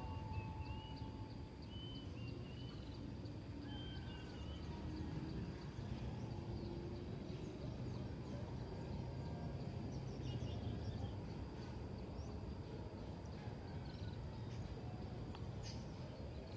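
Steady low background rumble with a few short bird chirps in the first few seconds.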